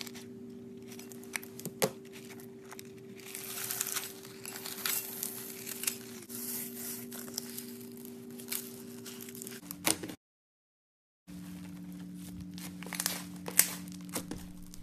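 Slime being squeezed and kneaded by hand: sticky crackling and crinkling with sharp clicks, over a steady low hum. The sound drops out completely for about a second a little past the middle.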